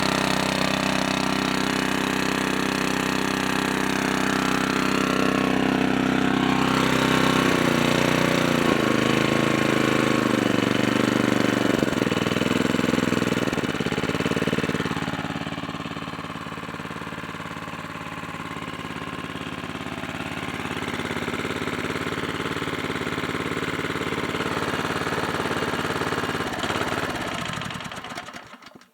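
Older Falkenburg pressure washer's small gas engine running steadily. Its speed wavers for several seconds partway through, then it runs more quietly, and near the end it shuts off and winds down.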